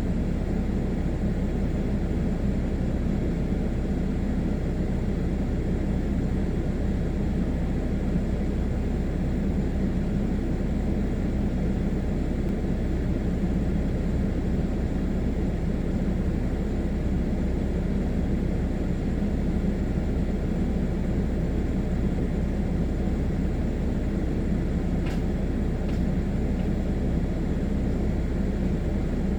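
Blower running steadily, blowing air down a wood boiler's chimney pipe to clear creosote: a constant low rushing drone.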